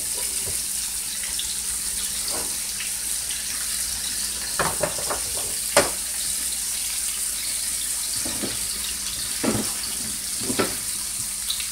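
Beef short ribs sizzling steadily as they brown in a skillet, with a few light knocks against the pan as the pieces are moved, about five and six seconds in and again near the end.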